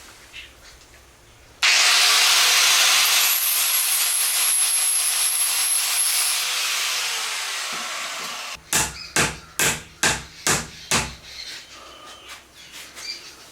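A power tool working wood, likely shaping the teak hammer handle, starts suddenly, runs about six seconds with a faint high whine and winds down. Then come about seven sharp knocks in quick succession.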